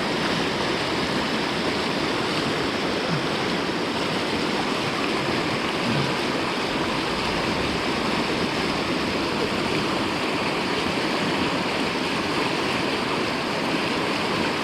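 Fast mountain river rushing steadily, running high with floodwater after heavy rain.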